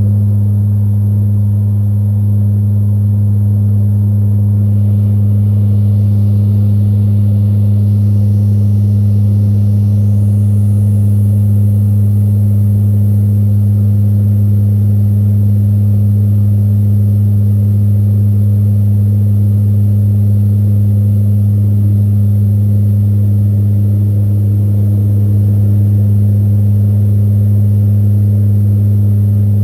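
C-130 Hercules turboprop engines and propellers droning steadily, heard inside the aircraft's cabin: a loud, deep, unchanging hum with a second hum above it.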